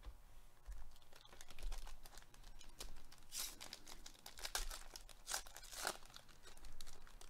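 Foil wrapper of a 2021 Panini Mosaic baseball card pack being torn open and crinkled. There is a rapid run of crackles, loudest about halfway through and again a couple of seconds later.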